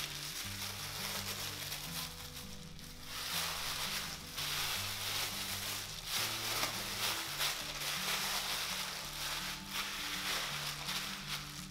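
Plastic bag and disposable plastic gloves crinkling and rustling as a sticky rice roll is rolled and pressed by hand, in waves with short pauses. Soft background music plays underneath.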